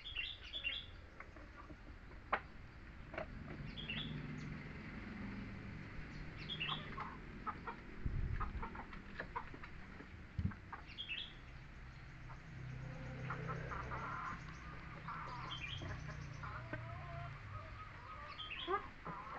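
Short high-pitched animal calls every three to four seconds, with softer, lower clucking calls about two-thirds of the way through, over a low steady hum.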